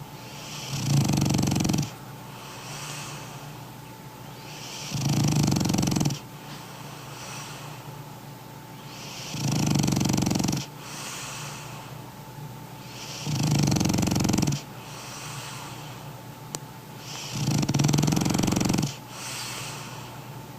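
A large French bulldog snoring: five loud, deep snores about every four seconds, each lasting about a second, with quieter wheezy breaths between them.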